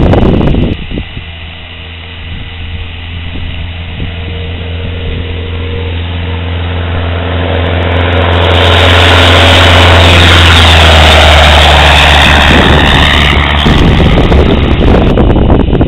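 Cessna 172's engine and propeller at full takeoff power, a steady drone that grows louder as the plane rolls toward and past the microphone about eight to thirteen seconds in, then fades as it climbs away. Wind buffets the microphone at the very start and again near the end.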